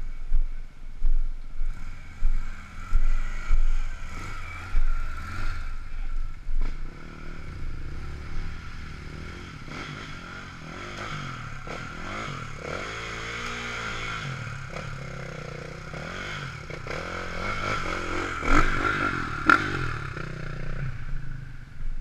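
Dual-sport motorcycle engines revving as riders work through a muddy trail. One engine's pitch rises and falls in the middle, and the loudest revs come near the end as a bike comes through close by.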